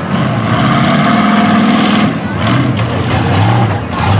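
Engines of several demolition derby pickup trucks running loudly together.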